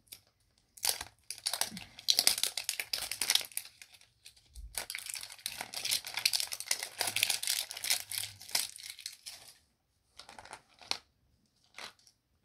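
Thin plastic shrink-wrap crinkling and tearing as it is peeled off a Mini Brands capsule ball by hand, in two long spells of crackling with a few short crinkles near the end.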